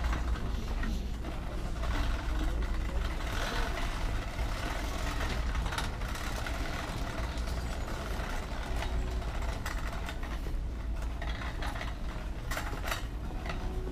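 Plastic shopping cart rolling over a hard store floor: a steady low rumble, with a few sharp rattling clicks near the end.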